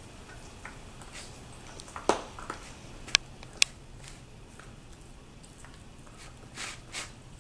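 Pembroke Welsh Corgi puppy working a wooden treat puzzle with nose and tongue: a few sharp wooden knocks and clicks as the pegs bump the board, about three between two and four seconds in, with softer licking and sniffing around them.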